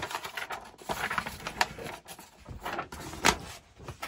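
Irregular rustling and light knocks, with one louder knock a little over three seconds in: handling noise as a handheld camera is moved about close to the microphone.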